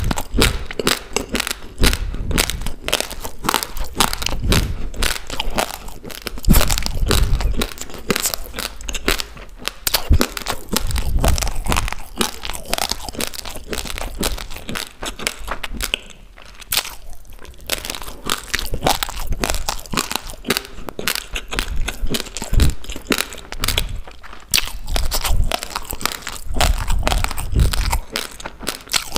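Close-miked chewing of uncooked raw rice: hard grains cracking and crunching between the teeth in a dense, uneven run of sharp crackles, easing off briefly just past halfway.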